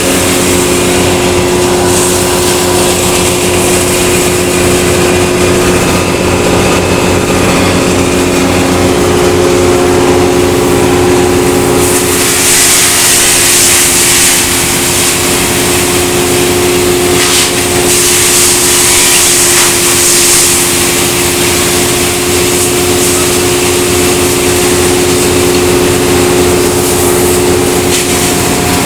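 Veneer wood chipper running steadily at a constant engine note. About twelve seconds in, and again about eighteen seconds in, a harsh high hiss rises over it for two or three seconds as veneer is shredded.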